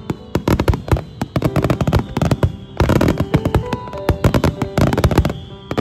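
Dense barrage of aerial firework shells bursting in a fireworks-show finale: rapid, overlapping bangs and crackles that ease a little in the middle and then pick up again.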